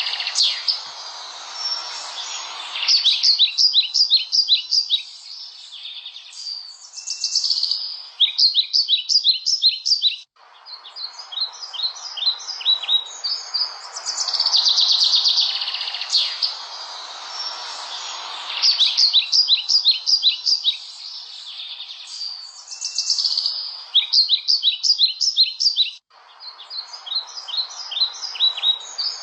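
Small songbirds chirping and tweeting: quick runs of short, high, falling notes, repeated every few seconds, over a steady background hiss.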